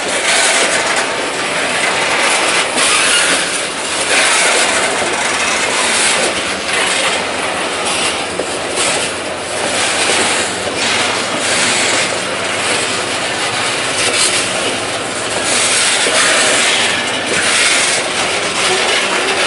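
Canadian National freight train cars rolling past: a loud, steady noise of steel wheels on rail and rattling cars, swelling and easing as the cars go by.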